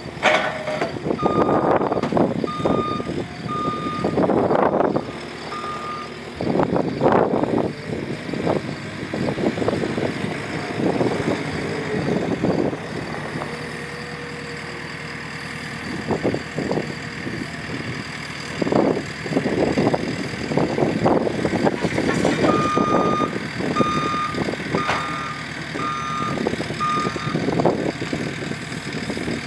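JCB skid steer loader's engine running and repeatedly revving up and down as the machine manoeuvres, with its reverse alarm beeping in short evenly spaced pulses while it backs up: a few seconds of beeps near the start, a short burst around six seconds in, and again from about twenty-two seconds in to the end.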